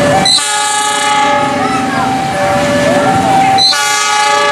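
Diesel locomotive's horn sounding two blasts as the train approaches: one about a second long near the start, and a second one starting near the end and still sounding.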